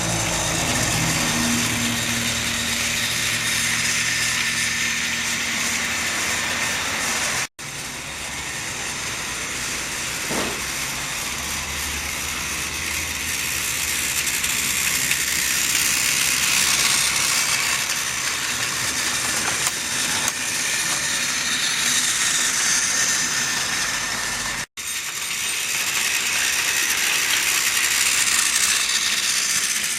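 Two battery-powered Trackmaster toy engines running laps on plastic track: a steady whirr of their small electric drive units with wheels rattling over the track, getting louder and softer as they circle. The sound cuts out for an instant twice.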